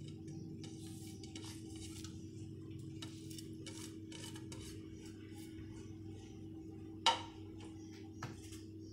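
Soft scraping and light clicking of fingers and a ceramic plate as garnish is brushed off it onto rice in a metal pot, with one sharper clink about seven seconds in. A steady low hum runs underneath.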